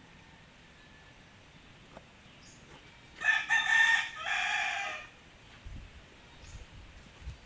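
A rooster crowing once, starting about three seconds in and lasting under two seconds, followed by a few soft low thumps near the end.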